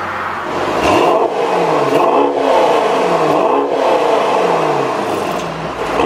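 Mercedes-AMG GT 63's 4-litre twin-turbo V8 just after start-up. About a second in it jumps in speed, then it is revved in several blips, the pitch rising sharply each time and falling back.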